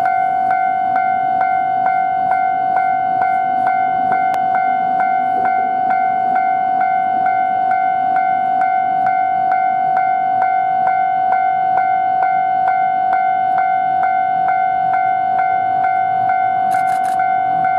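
Japanese railway level-crossing warning bell ringing steadily, a pitched electronic ding repeating about twice a second, warning of an approaching train. Near the end the low engine rumble of the approaching diesel railcar (Tosa Kuroshio Railway 9640 series) begins to rise beneath it.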